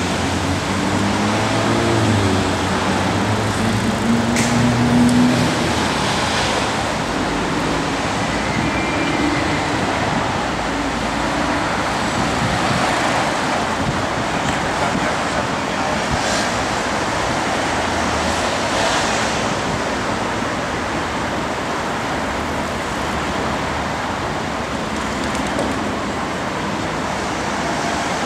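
City street ambience: a steady wash of road traffic noise with passing vehicles and people's voices mixed in.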